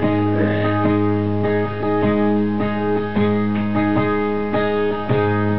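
Acoustic guitar strummed live, ringing chords with regular strokes, playing the instrumental intro of a song.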